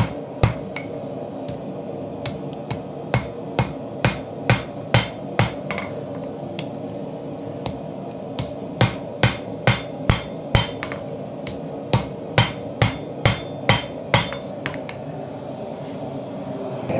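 Hand hammer striking red-hot Damascus steel on an anvil, drawing the metal down toward the heel of an integral knife blank. Sharp blows come about two to three a second in runs with short pauses and stop a few seconds before the end, over a steady hum.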